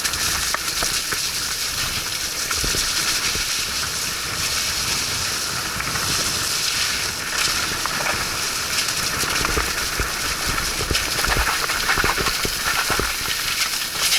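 Steady wet hissing and spraying of a mountain bike riding through mud and water, with scattered low knocks.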